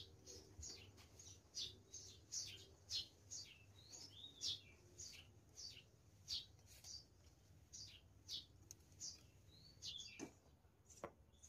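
Faint birds chirping: a steady run of short, high chirps that sweep downward in pitch, about two a second.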